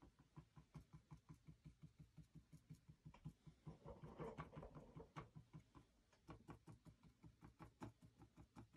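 Faint, quick taps of a paintbrush dabbing acrylic paint onto a flat canvas panel, about five taps a second, as leaves are stippled in.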